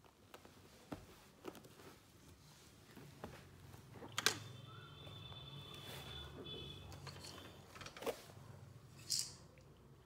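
Light clicks and knocks from a small plastic pull toy and its string being handled, the loudest just after four seconds in and another around eight seconds. A faint high tone runs through the middle, and there is a short hiss near the end.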